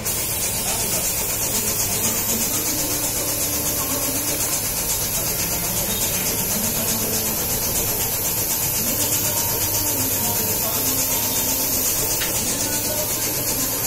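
Steady hiss of compressed air escaping from a pneumatic motorcycle lift table as the table lowers.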